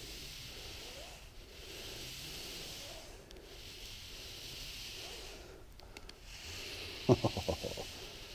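A rappeller going down a sandstone wall: a hiss that swells and fades in waves of a second or two, then a quick clatter of about six knocks near the end.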